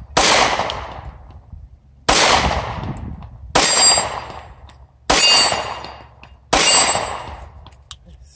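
Five shots from a 9mm Walther PPS M2 compact pistol, fired at a steady pace about one and a half seconds apart, each trailing off for more than a second. The pistol cycles through them without a malfunction.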